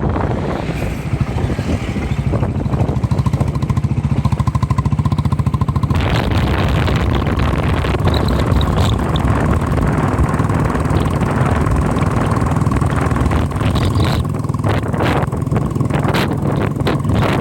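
A vehicle engine running steadily while driving, with rushing wind and road noise that grows louder about six seconds in.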